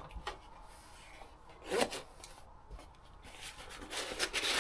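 A cardboard LEGO set box being handled and rubbed, with a short scrape about two seconds in and a longer rub near the end.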